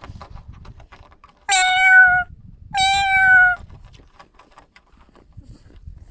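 Domestic cat meowing twice: two high-pitched meows of under a second each, a short gap between them. Faint light clicks and taps sound throughout.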